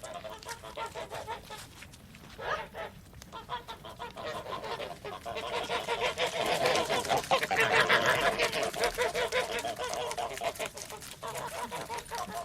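A flock of domestic geese honking, many calls overlapping. There is a brief lull about two seconds in, and the calling is densest and loudest in the middle.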